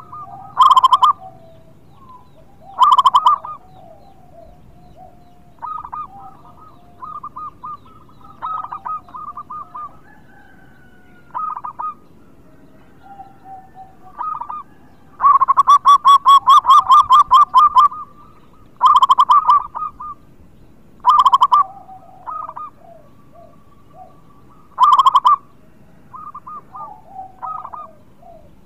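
Zebra dove (perkutut) cooing in repeated staccato phrases, loud short bursts with softer phrases in between and one longer rolling run of notes about halfway through.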